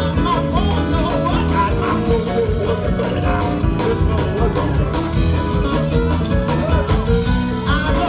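Live blues band playing, with a singer's voice over the band and a keyboard among the instruments.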